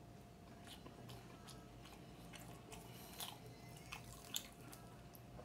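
Faint wet mouth sounds of a person biting and chewing a juicy orange wedge, with scattered small clicks; the sharpest clicks come a little after three and about four seconds in.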